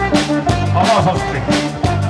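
Upbeat 1980s pop medley music with held chords over a steady drum beat of about two strikes a second.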